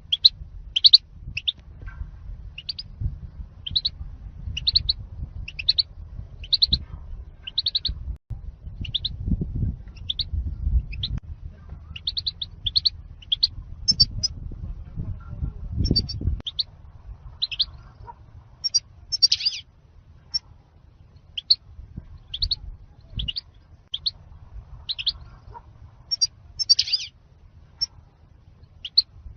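European goldfinch calling, the call goldfinch fanciers name 'zalzal': short high chirps repeated about once a second, some in quick pairs, over a low rumble.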